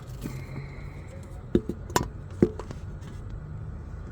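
Three sharp taps or clicks, about half a second apart, over a steady low rumble.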